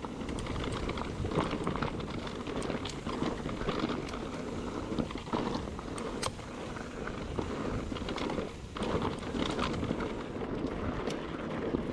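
Mountain bike rolling over a rocky dirt trail: tyres crunching on loose stones and dirt, with frequent short clicks and knocks from the bike rattling over the rocks.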